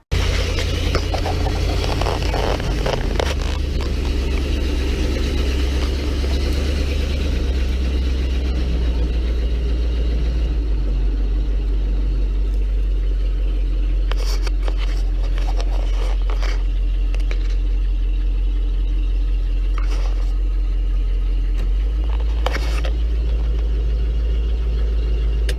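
A motor vehicle driving, with a steady, loud low rumble of engine and road noise. The rumble drops lower about ten seconds in and rises again a few seconds before the end.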